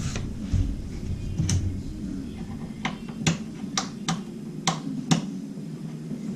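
Light switch flipped several times, a series of sharp clicks (about seven), as the newly hard-wired 120-volt LED counter lights are switched on to test the circuit.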